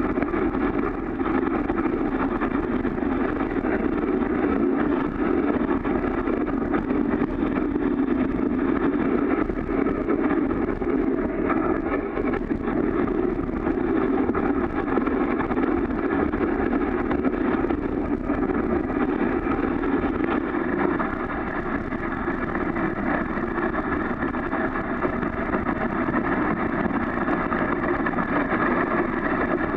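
Steady, muffled rushing of a dog sled gliding over snow behind a running four-dog husky team, with no let-up.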